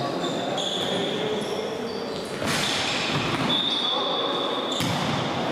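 Sports shoes squeaking on an indoor court floor during tchoukball play: repeated high squeaks at shifting pitches, some held for about a second, over the general noise of the hall.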